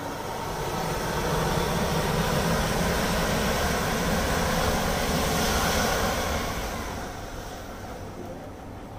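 A mass of safety matches igniting together and flaring up: a rushing fire noise that swells over the first second and a half, holds loud, then fades from about seven seconds in as the flames die down.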